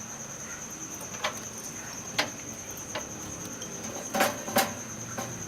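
Steady high-pitched cricket trill, with a few sharp clicks and knocks of computer hardware being handled; the loudest two come close together about four seconds in.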